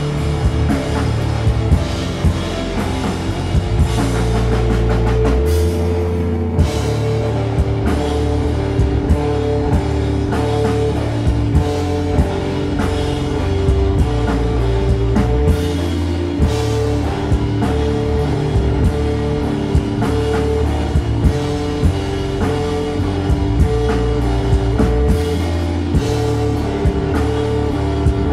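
Rock band playing live: a repeating electric guitar riff over bass guitar and a drum kit.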